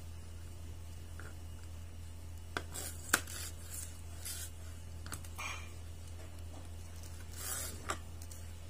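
Knife slicing spring onion stalks on a plastic cutting board: a few sharp clicks of the blade against the board, the loudest about three seconds in, with soft scraping and rubbing between. A steady low hum runs underneath.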